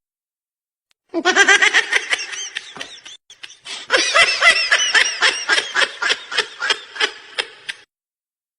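A person laughing in quick, high-pitched 'ha-ha' bursts, several a second, in two runs with a short break between them. The laugh starts about a second in and cuts off abruptly near the end.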